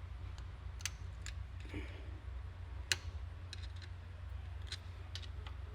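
Scattered small metallic clicks and ticks as the springs and pins of a Powertrax locker are handled and fitted into a differential carrier, with one sharper click about three seconds in, over a steady low hum.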